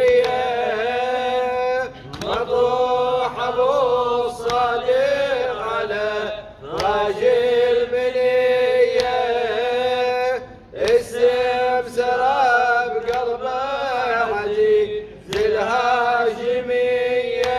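Several men chanting an Arabic Shia mourning elegy (latmiya) in drawn-out phrases of about four seconds, with short breaks for breath between them.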